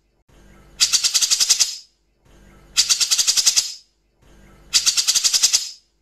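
Grey-cheeked bulbul (cucak jenggot) giving its harsh rapid 'tembak kasar' rattle call three times, about two seconds apart. Each call is a burst of about ten sharp notes a second lasting roughly a second, led in by a faint softer passage, and breaks off cleanly into a short pause.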